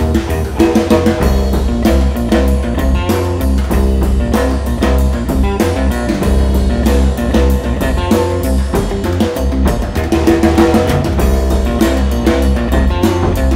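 Instrumental jam of electric guitar over a Pearl drum kit, with no singing.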